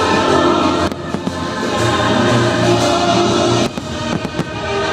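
Fireworks show soundtrack music, with choral singing, playing loudly while firework shells burst: one bang about a second in and a quick cluster of bangs and crackles near the end.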